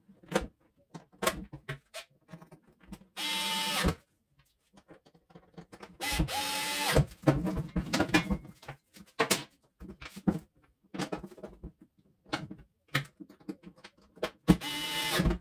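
Small cordless screwdriver driving screws back into the sprayer's housing in three short runs of a second or less, with clicks and knocks of the plastic parts being handled in between.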